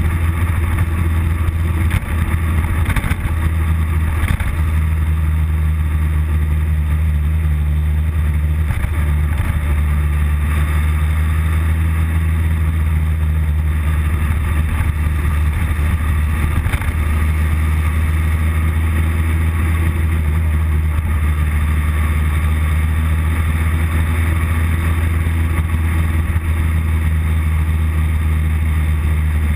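Motorcycle engine running at steady cruising speed, a loud low drone under road and wind noise, with a few brief changes in the engine note in the first half.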